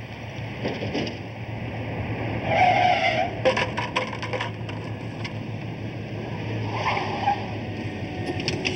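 Car driving up and turning in, with a short tire squeal about two and a half seconds in and a fainter one near seven seconds.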